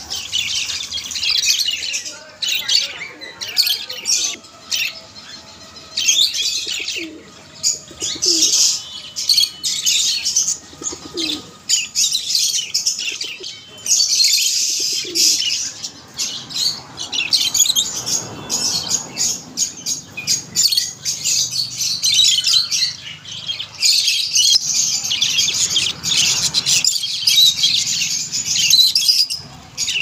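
Many small caged birds chirping and twittering at once, a dense, busy chatter of short high calls with only brief lulls.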